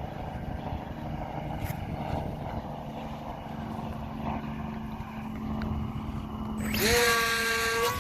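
Wind buffeting the microphone, then about seven seconds in a Racerstar micro 2300kv brushless motor and its small 4.1x4.1 propeller spool up sharply, a loud whine that rises and then holds steady at high throttle.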